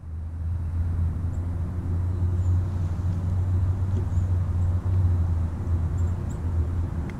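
Steady low rumble of outdoor background noise, with a few faint, brief high chirps.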